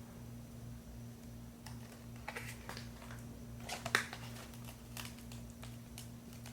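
Light, scattered clicks and taps of a Blu-ray steelbook case and its paper J-card being handled, with one sharper click about four seconds in, over a faint steady hum.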